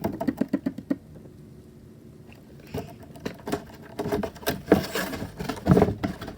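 Packaging being handled and opened by hand: a quick run of small clicks and crinkles, a quieter pause, then louder irregular crinkling and knocks in the second half.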